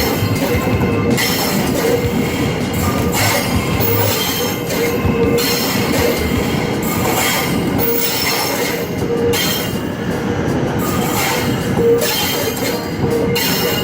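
Hitachi-built SRT Red Line electric commuter train running on track: a loud, steady rumble of running noise with a tone that comes and goes several times.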